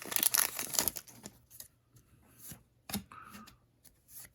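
Trading cards being handled: a crinkly rustle, like a foil pack wrapper, for about the first second, then quieter scattered slides and light taps as the cards are flipped through.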